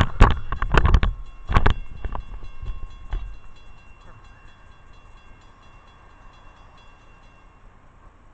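Several loud knocks and rumbles from a phone camera being handled in the first two seconds. Faint ringing tones with fast, regular ticks follow and fade out about seven seconds in.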